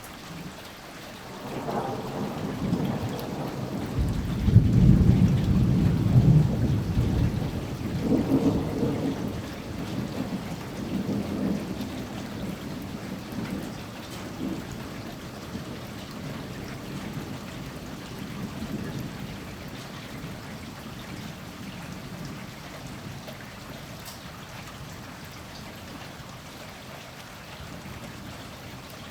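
A long thunder rumble over steady rain: it builds about a second and a half in, peaks a few seconds later with a deep roll, swells again twice, then dies away over the next ten seconds, leaving the rain hiss.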